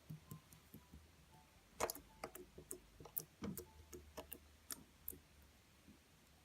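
A series of irregular light clicks and taps, coming thickest from about two to five seconds in.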